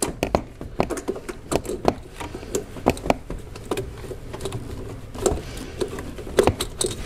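Irregular small clicks and taps of a hand and metal and plastic parts being handled deep in a car engine bay, as the turbo diverter valve is worked loose by feel.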